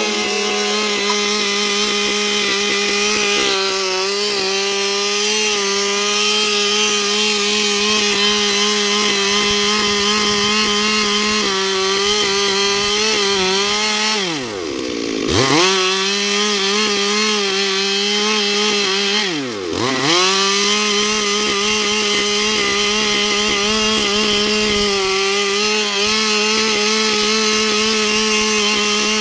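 Stihl two-stroke chainsaw running at high revs while cutting wood. Twice, about halfway and again about two-thirds of the way in, the engine revs drop sharply and climb straight back up.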